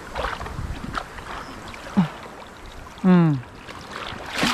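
Shallow seawater washing and foaming over reef rocks, with a sharp splash near the end as a hooked tripletail is lifted out of the water. A person's short voice sound, falling in pitch, about three seconds in.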